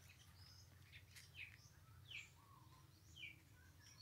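Faint bird calls: a few short, falling chirps, roughly a second apart, over quiet outdoor background.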